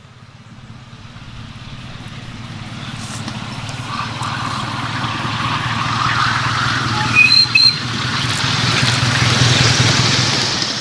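Miniature ride-on steam locomotive approaching round a curve and passing close by, its running noise growing steadily louder to a peak near the end. Two short high-pitched shrieks sound about seven seconds in.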